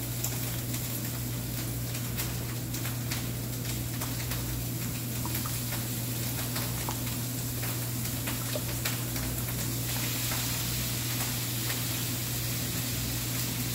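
Food sizzling in a frying pan with scattered little crackles, over the steady low hum of a kitchen range-hood fan.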